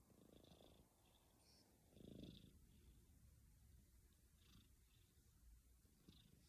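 A cat snoring faintly in its sleep, with low, raspy breaths. The strongest comes about two seconds in.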